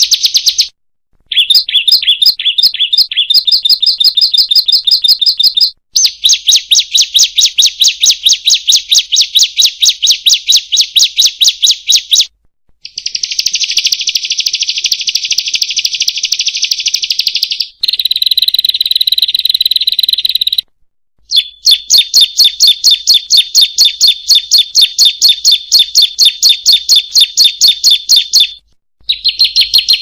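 Bar-winged prinia (ciblek) song: loud phrases of rapid, sharply repeated high notes, each lasting a few seconds with brief pauses between. One phrase is a continuous buzzy trill and another is a held whistled note.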